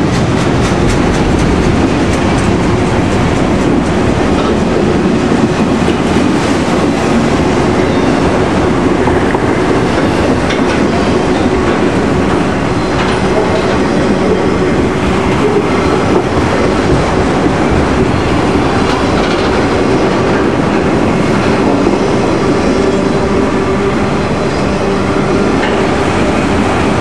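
Long freight train of autorack cars rolling past at speed: a steady, unbroken rumble of steel wheels on rail with clickety-clack over the rail joints.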